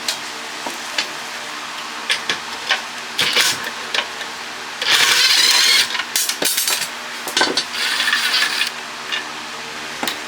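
Metal tools clicking and knocking against the water pump's metal parts while a part is worked loose, with a harsh scraping burst lasting about a second around five seconds in and a shorter one near eight seconds. A steady hum runs underneath.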